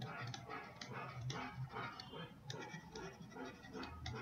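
Faint, irregular scratching of a stylus on a pen tablet as words are handwritten in short strokes.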